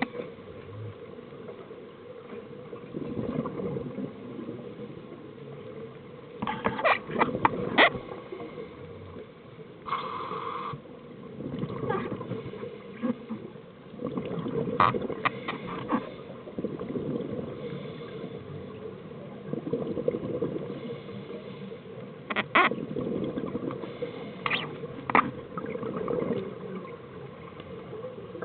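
Scuba regulator breathing heard underwater: exhaled bubbles gurgle in swells every few seconds, with sharp clicks in among them.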